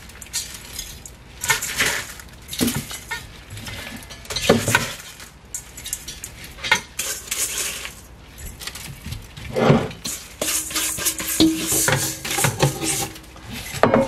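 Coarse salt scooped by a rubber-gloved hand from a stainless steel bowl and sprinkled into a glass jar of hairtail pieces: gritty scrapes and rattles of salt grains on metal and glass every second or two, with a few clinks.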